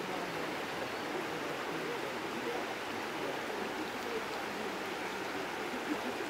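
Shallow river current running steadily, an even rushing of flowing water.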